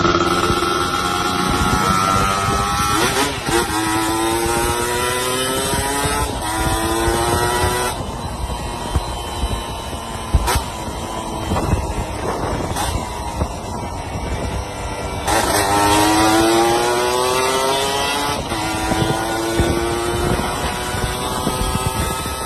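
Yamaha F1ZR two-stroke motorcycle being ridden while it warms up. The engine note climbs sharply twice as the throttle opens, then sinks slowly as it eases off.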